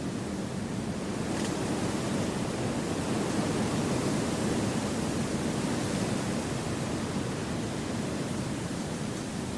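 Steady wind rushing through forest trees, an even noise that swells a little a few seconds in and then eases.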